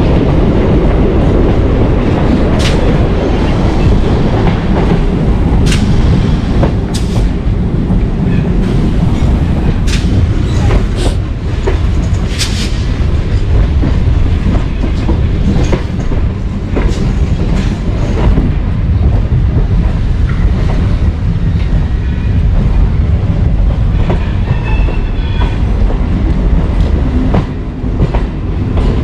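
Electric suburban local train (EMU) running at speed, heard from its open doorway: a steady heavy rumble with sharp clicks of the wheels over rail joints, and a faint high squeal of the wheels about three-quarters of the way through as it comes into a station.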